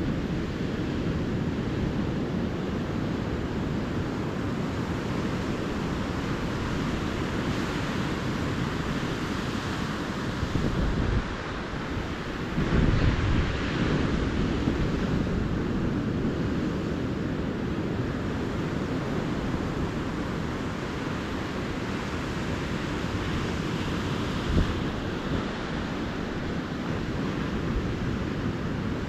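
Ocean surf washing steadily onto a beach, with wind rumbling on the microphone; the sound swells louder about halfway through.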